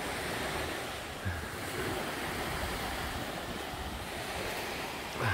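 Small sea waves washing onto a sandy beach, a steady surf hiss, with wind buffeting the microphone. A short low thump comes about a second in and another at the end.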